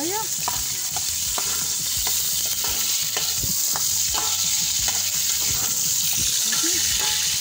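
Pieces of animal fat sizzling in hot oil in a stainless steel pot, with a steady high hiss. A metal spoon stirring them clinks and scrapes against the pot again and again.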